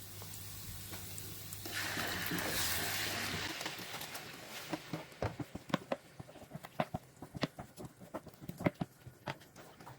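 Tomato sauce going into a pot of hot oil, onions and tomato paste, with a brief sizzling hiss about two seconds in. This is followed by irregular clicks and knocks of a spoon against the pot as it is stirred.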